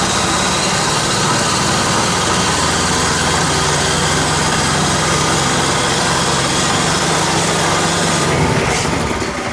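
Small gasoline snowblower engine running steadily, then dying away about a second before the end as it runs out of gas.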